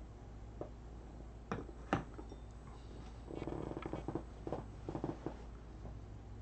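Faint room noise over a steady low hum, broken by two sharp knocks about one and a half and two seconds in, then a short spell of rough rustling and clicking through the middle.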